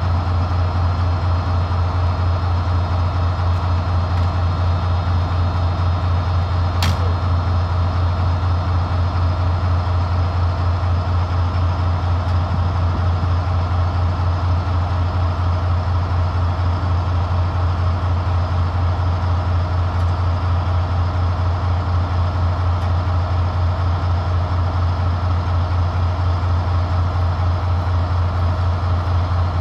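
Diesel train engine idling steadily: a loud low hum with a fast, even pulse. A single sharp click sounds about seven seconds in.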